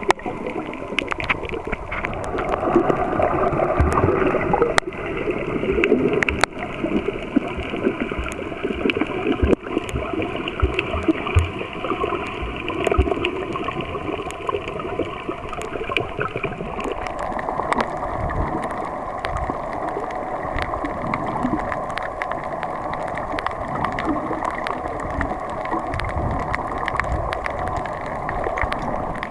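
Muffled underwater sound from a camera in the water: gurgling and sloshing, with many scattered sharp clicks.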